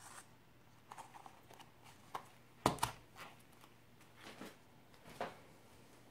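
Thin plastic lid being pressed down onto a plastic deli cup: a string of light clicks and crackles, with one sharper snap near the middle, then a few more as the cup is handled.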